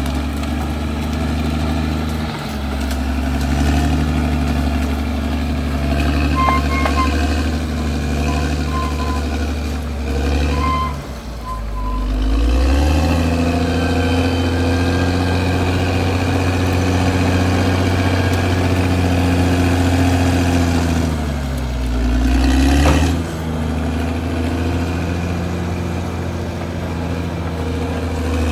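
Caterpillar D6R XL bulldozer's diesel engine running steadily under load, its pitch dipping briefly about eleven seconds in and again near twenty-two seconds. A few short high beeps sound between about six and twelve seconds in.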